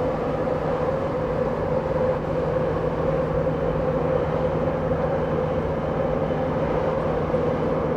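A passing cargo ship's engine: a steady mechanical drone with a constant low hum.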